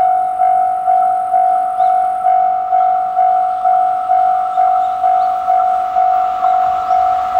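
Japanese level crossing's electronic warning bell ringing steadily: a single clanging tone repeated a little over twice a second, each strike fading before the next, signalling that a train is approaching and the barriers are down.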